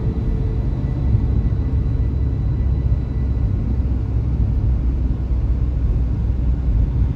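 Steady low rumble of a car's engine and tyres, heard from inside the moving car's cabin.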